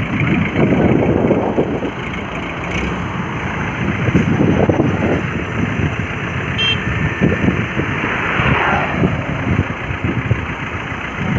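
Heavy truck engines running close by with road traffic passing, a steady low rumble, broken by a couple of short high beeps about three and seven seconds in.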